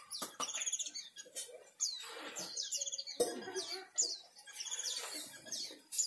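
Mugimaki flycatcher singing in a steady run of short, high chirps and quick downward-sliding notes, with a few sharp clicks between them.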